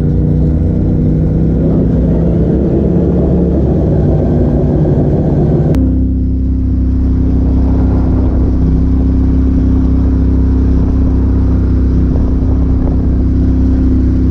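Onboard engine of a side-by-side UTV driving on a gravel road, its note shifting a little. About six seconds in the sound cuts abruptly to a second UTV's engine running at a steady drone.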